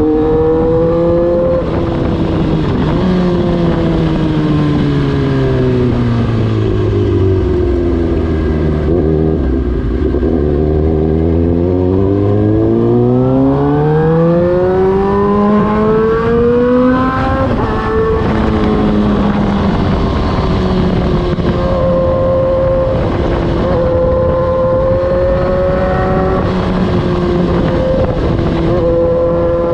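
Suzuki GSX-R1000's inline-four engine through an Austin Racing muffler, its note falling steadily for about ten seconds as the bike slows, then rising smoothly as it accelerates. Around seventeen seconds in the pitch drops once, as at an upshift, and the engine then runs at a fairly steady speed with small rises and falls.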